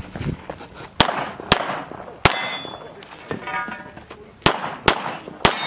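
9mm CZ 75 SP-01 Shadow pistol firing six shots in uneven pairs and singles, with steel targets ringing after some of the hits.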